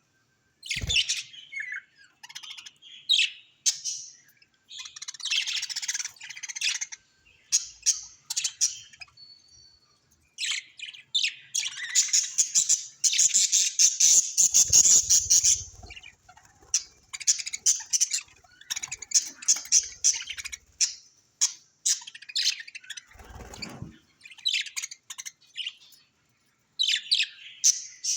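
Budgerigars chirping and chattering in quick high bursts, broken by short pauses, with a long unbroken run of warbling chatter about halfway through.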